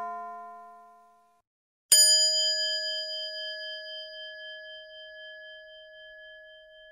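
A bell-like chime: the ring of one ding dies away in the first second, then after a short silence a second ding is struck about two seconds in and rings on, fading slowly with a wavering beat.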